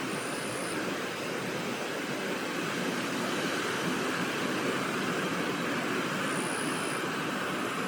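Steady rushing noise of flowing river water, with two short, very high thin chirps, one at the start and one about six seconds in.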